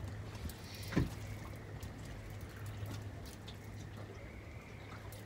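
Water lapping against a small boat's hull over a steady low hum, with a single knock about a second in.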